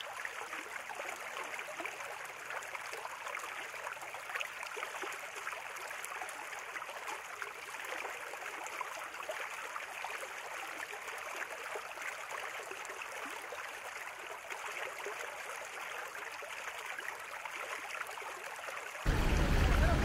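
Small fountain jets splashing into a shallow ornamental pond: a steady rush of falling water. About a second before the end, a much louder, deeper rumbling noise cuts in abruptly.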